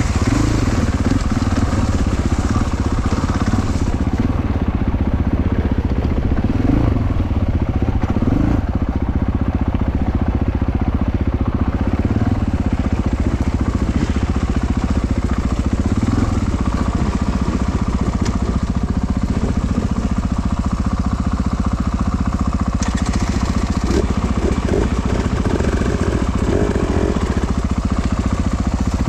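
KTM 450 four-stroke enduro motorcycle engine running steadily under way, its pitch rising and falling now and then as the throttle is worked.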